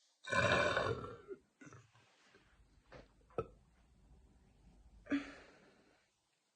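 A woman lets out a long, deep burp lasting about a second, starting just after the beginning. Quieter breaths and a click follow, and a shorter, breathier burp comes near the end.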